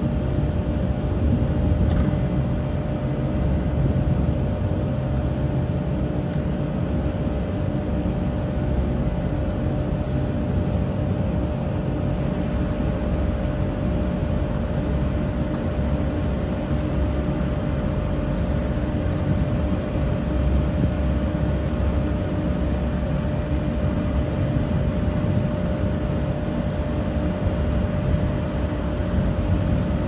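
Steady low rumble of ethanol-plant machinery with a constant hum in it.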